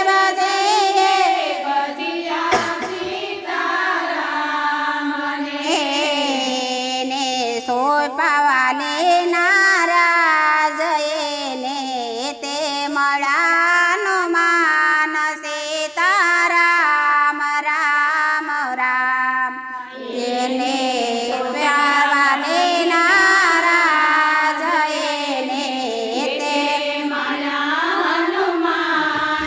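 Women singing a Gujarati devotional kirtan, one unbroken sung melody.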